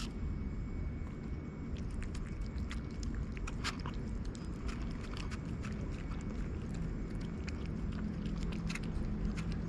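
Orange cat eating wet cat food from a paper plate: quick, irregular chewing and lip-smacking clicks. A steady low background rumble runs underneath.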